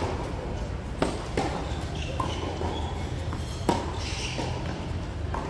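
Tennis ball being struck and bouncing during play: a few sharp knocks, about a second in, again shortly after, and once more near four seconds, over a steady low background rumble.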